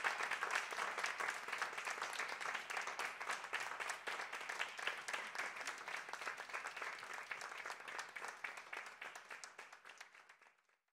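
Applause: many hands clapping together, slowly fading out and stopping just before the end.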